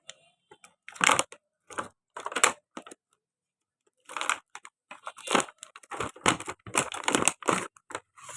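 Tight toy packaging being wrestled open by hand: irregular crinkling and tearing rustles, with a pause of about a second midway.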